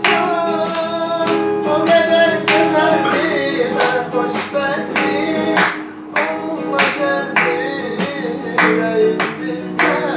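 Hand clapping on a steady beat, a little under two claps a second, along with a song: a voice singing over plucked strings.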